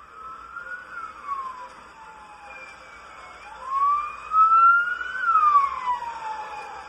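Vehicle siren wailing with a slow rise and fall in pitch, two cycles, the second louder.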